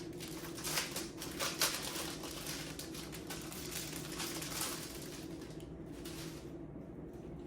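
Rustling and quick light clicks of packaging and small kitchen pieces being handled and unpacked, stopping about six seconds in.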